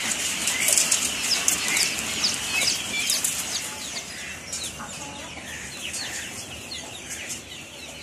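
Many young chicks peeping, a dense chorus of short high cheeps that thins out and grows quieter in the second half.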